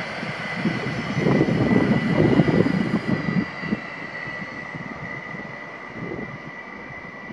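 Stadler Flirt electric multiple unit of Koleje Mazowieckie (ER160) at the platform, giving a steady high-pitched whine over an uneven low rumble that is loudest between about one and three seconds in.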